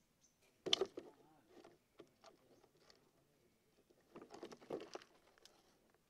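Light knocking, clicking and scrabbling of a parakeet against a plastic-bottle trap as it goes in and is shut inside, in two bursts: a loud one about a second in and another near the end.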